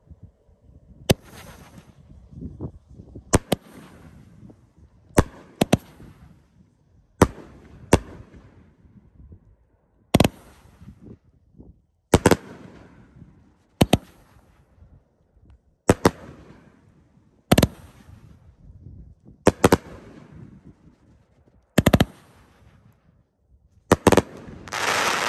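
A 16-shot, 500 gram consumer fireworks cake firing its shots one after another, sharp reports about every one to two seconds, each trailed by a brief hiss. Near the end comes a longer, denser crackling burst.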